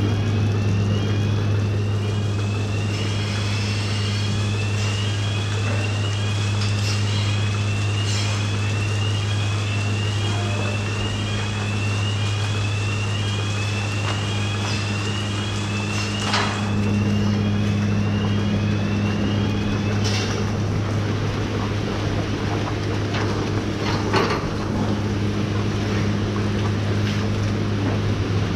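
Milking-shed machinery running with a steady low electric hum. A repeating rising squeak comes about twice a second for the first dozen seconds or so, and a few knocks sound later.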